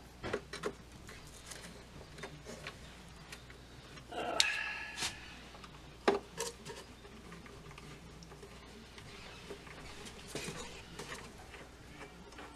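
Light clicks and knocks of a screwdriver being handled and worked on an old radio's front panel screws. A louder metal clatter with a brief ring comes about four seconds in, and a sharp knock follows a second later.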